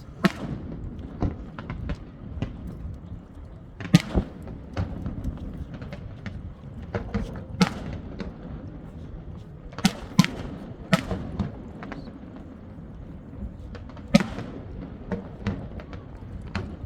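Fireworks going off: irregular sharp bangs at uneven gaps, the loudest about 4, 8, 10, 11 and 14 seconds in, over a steady low rumble.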